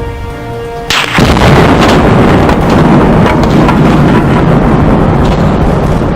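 About a second in, a binary exploding target (Tannerite) packed inside a clothes dryer detonates with a sudden loud blast, followed by a heavy, continuous rumble with a few sharp cracks. Music plays underneath.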